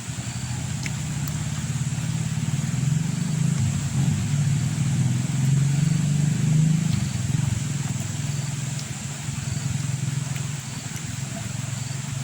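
A motor engine running, a low hum that grows louder toward the middle and eases off again.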